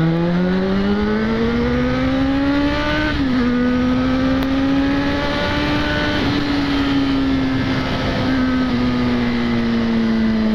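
Yamaha XJ6's 600 cc inline-four engine accelerating, rising in pitch. A quick upshift about three seconds in drops the note, after which it holds a steady high note that eases slowly down near the end. Wind rush runs underneath.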